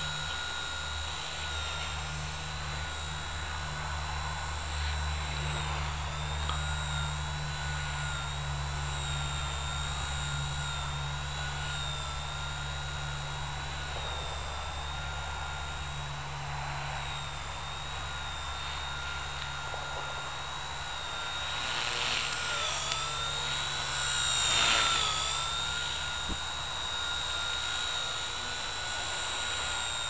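Blade mCP X micro RC helicopter flying, its electric motors and rotors giving a steady high whine that wavers in pitch as throttle and blade pitch change. It grows louder about three-quarters of the way through, dipping briefly in pitch.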